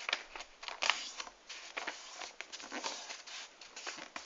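A sheet of paper being folded and creased by hand, giving short irregular rustles and crinkles.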